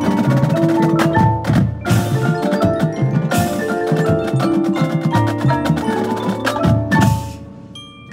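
Marching percussion ensemble playing a loud passage: front-ensemble marimbas and vibraphones with drums and cymbal crashes. Near the end the full sound drops away, leaving a few ringing mallet notes.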